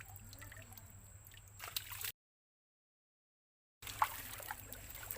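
Faint water sounds: dripping and small splashes and trickles in shallow water, with scattered little clicks. The sound drops out completely for about a second and a half in the middle, then the small splashes resume.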